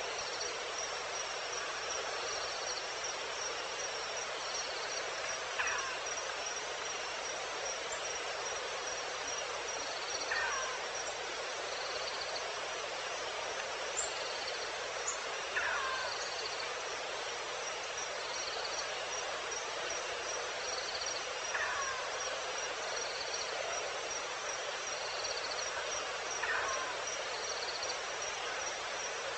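Night-time wild ambience: a steady high insect trill with regular shorter chirps, and a falling call from an unseen animal repeated about every five seconds, over a constant hiss.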